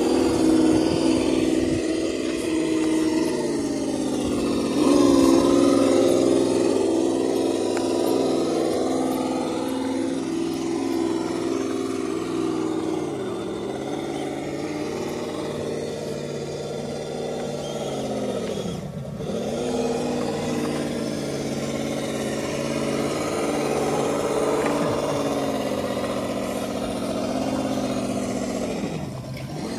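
Electric motors and gear drives of RC rock crawler trucks whining as they crawl over rock. The pitch dips and climbs back several times as the throttle is eased and reapplied.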